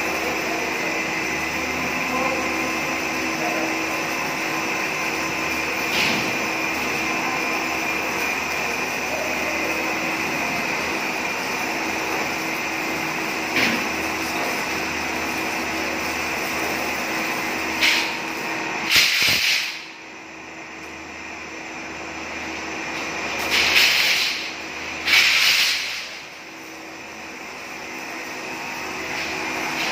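Steady drone of running machinery with a high whine, broken by four short hissing bursts in the last third. About two-thirds of the way through, the drone drops away and then slowly swells back.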